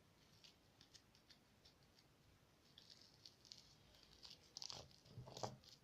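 Faint sticky crackling and clicking of homemade slime being handled and pressed into a small container, growing busier and louder near the end.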